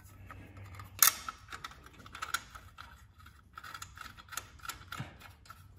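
Thin sheet-metal engine shield being worked into place by hand behind a bracket, clicking and rattling against the engine's metal parts in short irregular clatters, with one sharp clack about a second in.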